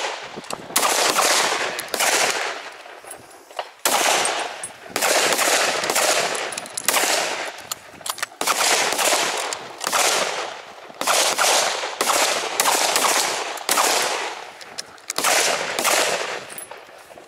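Centrefire rifle shots fired by several shooters on a range firing line, irregularly spaced at about one to two a second. Each sharp crack trails off in a long echo.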